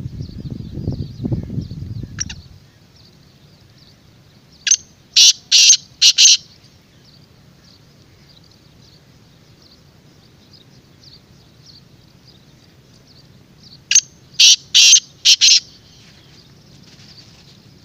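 Black francolin calling from its cage: two bouts of its harsh, grating call, each four or five notes in quick succession over about a second and a half, some nine seconds apart. A low rumble fills the first two seconds.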